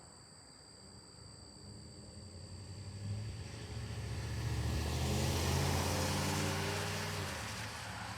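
A motor vehicle passes by, its engine note building up, loudest about five seconds in, then fading away. Crickets chirp steadily underneath.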